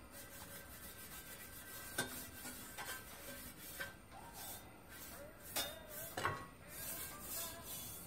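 Wad of metal wool on a stick scraping and rubbing around the inside of a hot copper frying pan while wiping on its tin lining, with about five sharp knocks of the tool against the pan.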